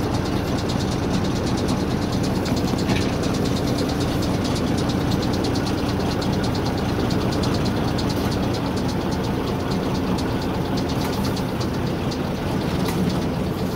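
Diesel engine of a FAUR L45H diesel-hydraulic narrow-gauge locomotive running steadily while it pushes loaded coal wagons, heard from the cab, with a fast, even clatter over a low drone.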